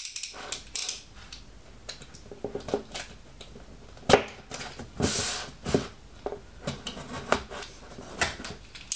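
Cardboard shipping box being handled and opened by hand: irregular taps, clicks and scrapes on the cardboard, a sharp knock about four seconds in, and a short rasp about five seconds in as the tape seal is slit.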